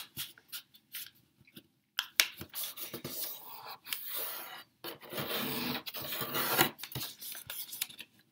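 A sheet of origami paper being folded by hand: rustling and crinkling in irregular bursts, with fingers scraping along the folds to crease them flat.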